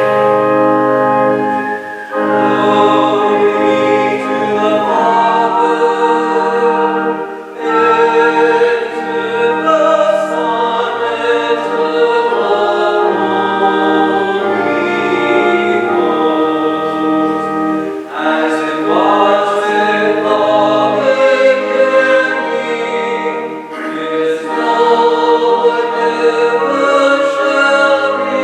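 Choir singing a sacred piece with instrumental accompaniment, in long held phrases with vibrato.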